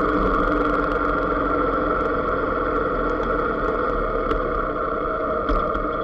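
Motorcycle engine running steadily at low road speed, heard from the rider's position, with a low rumble underneath.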